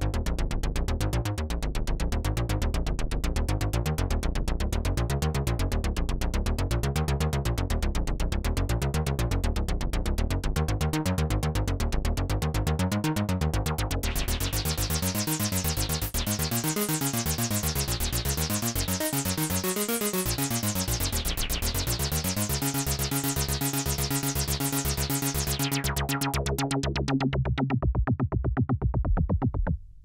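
Dave Smith Prophet-6 analogue polyphonic synthesizer playing a fast pulsing pattern of notes that step up and down. About halfway through the sound turns much brighter as its knobs are worked, then it settles on held low notes pulsing in rhythm, and the brightness falls away near the end.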